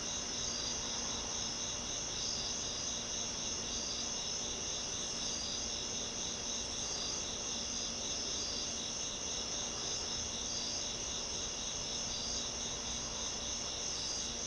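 Insects chirring steadily: a high continuous trill with a faint, even pulse under a second apart, over a faint low hum.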